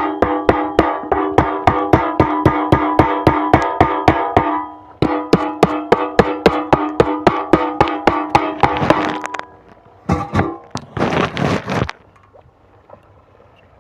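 Background music: a repeating plucked-string pattern with a steady beat of about four notes a second, with a short break partway and ending about two-thirds of the way through. After it come a couple of seconds of noisy rushing bursts, then quiet.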